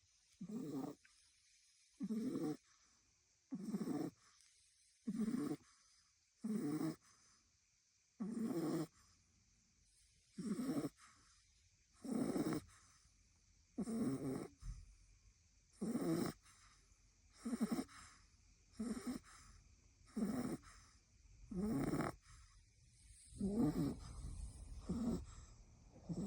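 French bulldog puppy snoring in its sleep: a steady rhythm of short, low snores, one with each breath about every one and a half seconds.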